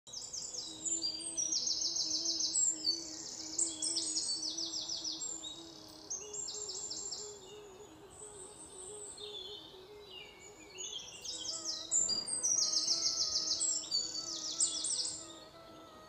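Many birds chirping and trilling loudly in quick repeated bursts, over soft background music with a slow melodic line; the bird calls die away near the end.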